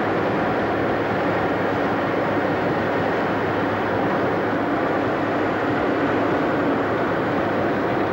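A car driving at speed, heard from inside the cabin: steady road, tyre and wind noise with a low engine hum underneath.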